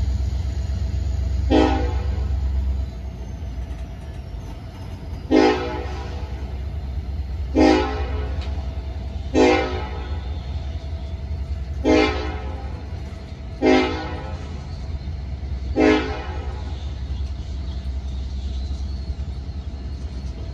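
Diesel freight locomotive's horn sounding seven short blasts, each about half a second, roughly two seconds apart, over the steady low rumble of the locomotive's engine.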